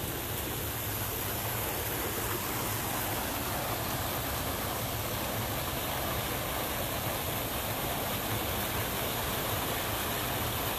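Steady rush of a small stream running fast and swollen after rain.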